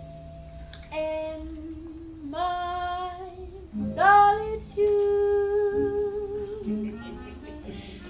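A woman singing a slow melody in long, held notes, with some quieter lower notes underneath.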